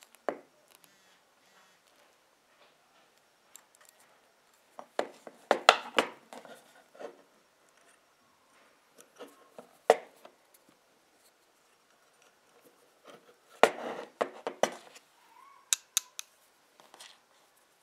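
Steel pliers being handled, their jaws and handles clicking and clacking. There are sharp metal clicks in clusters: several about five to six seconds in, one near ten seconds, and a busier run from about thirteen to fifteen seconds.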